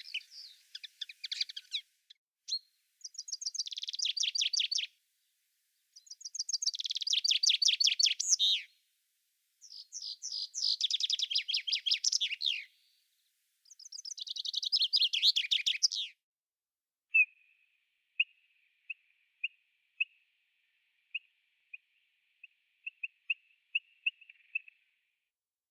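Songbird singing: four fast, trilled song phrases of about two to three seconds each, with short pauses between them. From about two-thirds of the way in these give way to a run of short, single high chirps.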